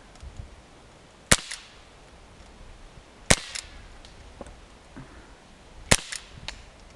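Pellet gun firing three sharp shots, about two to two and a half seconds apart, each a short crack with a brief tail.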